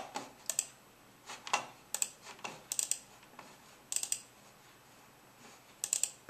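Clicks of a computer mouse and keyboard in scattered small clusters, several of them quick double clicks, with a lull before a last pair near the end.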